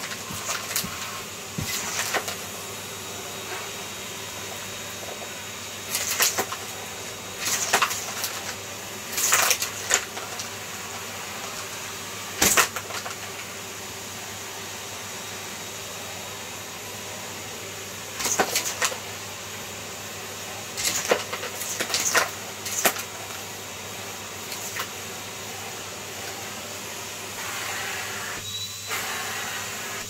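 Numatic James tub vacuum cleaner running steadily, its hose being worked over a fleece blanket, with sharp rattles and knocks every few seconds. Near the end a thin high whistle comes in as the suction note changes.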